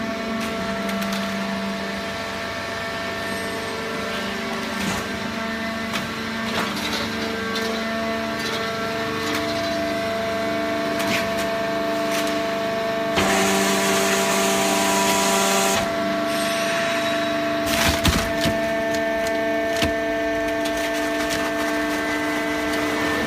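Hydraulic cardboard baling press running: a steady hum with several held tones, scattered cracking and crunching of cardboard being compressed, and a loud hiss lasting about two and a half seconds around the middle.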